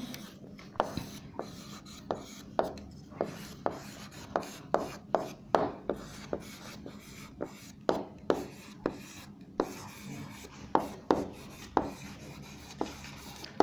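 Handwriting on a hard surface: light scratching strokes with sharp taps, irregular and about two a second, as the letters and angle marks are put down.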